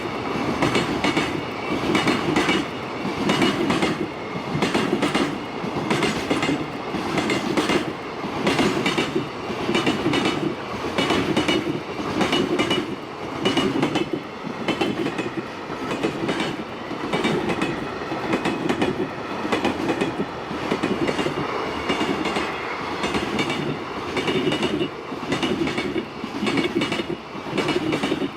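A long freight train rolling past, its wagon wheels clacking over the rail joints in a steady repeating rhythm of clack-clack, about one group every second or so.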